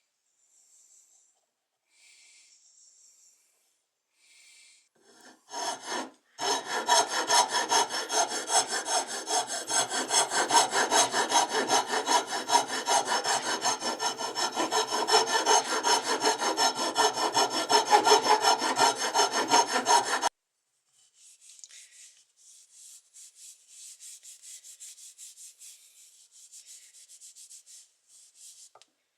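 Abrasive rubbing in fast back-and-forth strokes during hand work on a knife. It is loud and continuous for about fifteen seconds, stops abruptly, then carries on as fainter, lighter strokes.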